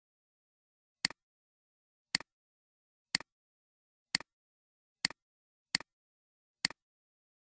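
Computer mouse button clicks, seven of them at about one a second, each a quick click with a softer second tick right after, as the button is pressed and released.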